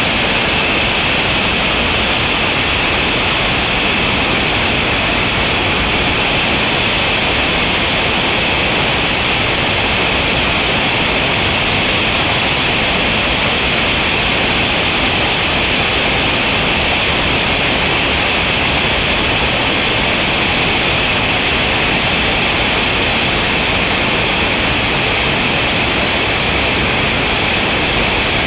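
Steady rushing of whitewater rapids on a creek running high, an even unbroken noise with no separate splashes or knocks standing out.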